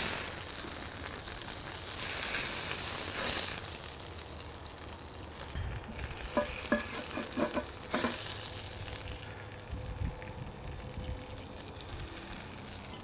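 Beef patties and pancetta sizzling on a MoJoe griddle plate. Metal spatulas scrape under the patties and clink against the plate several times around the middle.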